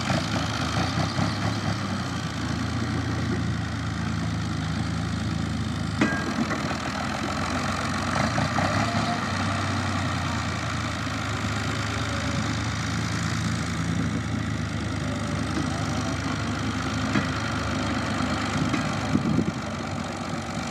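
Tractor diesel engine running steadily as it hauls a trailer piled high with rolled straw bales, with one sharp knock about six seconds in.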